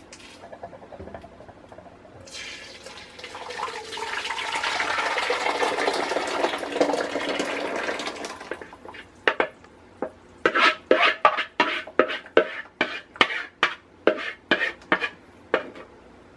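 Strained tomato puree pouring from a plastic bowl into a cooking pot for about six seconds. After that comes a run of quick sharp knocks and scrapes, two or three a second, as the last puree is worked out of the bowl with a wooden spoon.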